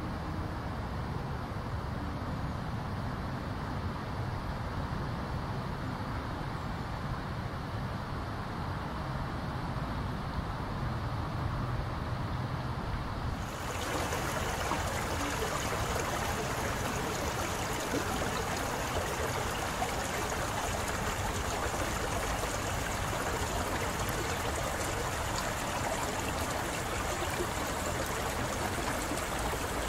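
Spring water flowing. At first there is a low, muffled rush of shallow water running through grass. About 13 seconds in it changes to a louder, brighter splashing as the spring gushes out from between rocks into a shallow pebbly pool.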